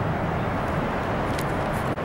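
Steady rushing outdoor background noise, even throughout, with one faint click about one and a half seconds in.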